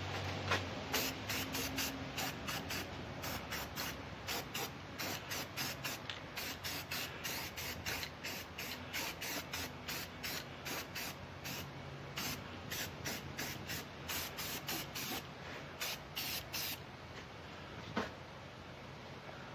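Aerosol spray-paint can hissing in short, rapid bursts, about three a second, as a coat of paint is laid on an outboard motor's lower pan; the spraying stops a few seconds before the end, followed by a single click.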